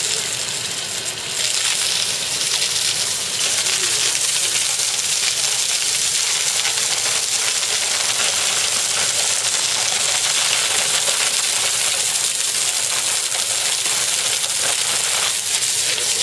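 Water from a hose spraying over an Asian elephant, a steady hiss and patter of spray hitting her wet hide and the ground.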